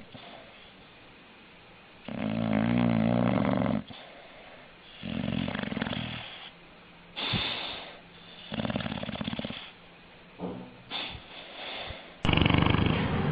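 A dog snoring in a slow series of snores, each about one to two seconds long, the first and longest with a buzzing, pitched tone. A few short snuffles come just before a louder snore starts near the end.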